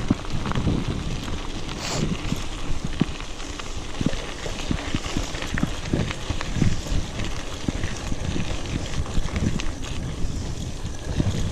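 Old mountain bike rattling over a rough trail, with many short irregular clicks and knocks from the bike over a steady rumble of tyre and ride noise.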